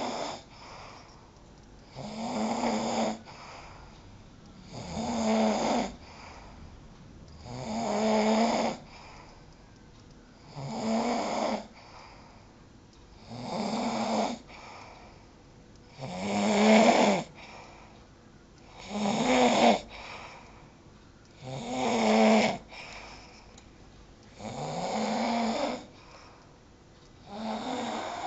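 A sleeping person snoring loudly and rhythmically, one rasping, pitched snore about every two and a half to three seconds, about ten in all.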